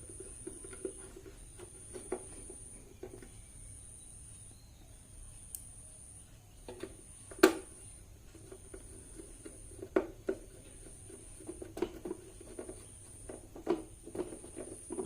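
UPS battery backup's plastic casing being handled and reassembled: scattered light clicks and knocks, with one sharp click about seven seconds in.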